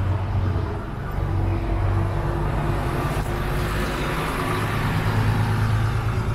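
Street traffic: motor vehicles running and passing close by, a steady low engine hum under tyre and road noise that swells about three seconds in.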